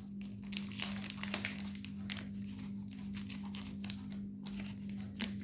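Crinkling and scattered small clicks from objects being handled, over a steady low electrical hum.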